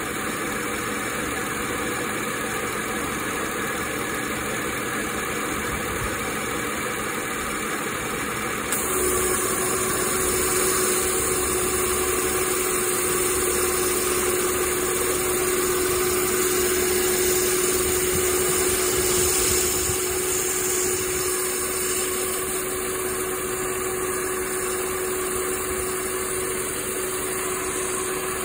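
Saturn Vue's 3.5 L V6 idling steadily, heard up close at the belt-driven A-Premium replacement AC compressor and clutch. About nine seconds in, a steady whine joins the running sound and it gets a little louder, holding to the end.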